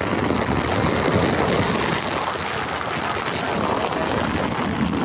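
Water spraying from a shower head directly onto a plastic waterproof pouch, picked up by the phone sealed inside it: a loud, steady rush of water on plastic.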